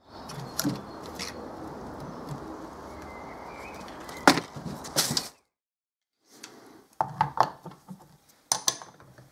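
Steady outdoor background for about four seconds, then two sharp knocks about a second apart. After a short silence, several metal clicks and clinks as water-pump pliers are fitted around the mini chainsaw's sprocket nut on the workbench.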